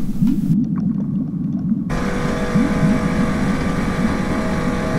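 A low, wavering rumble, with a steady hum coming in about two seconds in.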